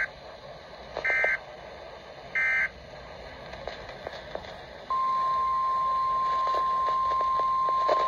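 Weather radio sounding an Environment Canada Weatheradio alert: three short bursts of SAME digital header data, about a second apart, then a steady 1050 Hz warning alarm tone that starts about five seconds in and holds on.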